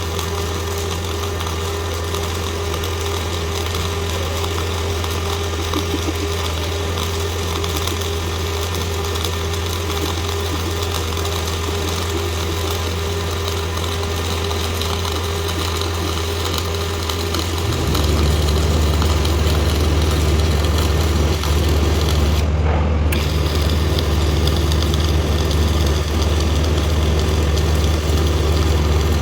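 A steady machine hum under a continuous hiss. About eighteen seconds in, the hum steps up louder and lower.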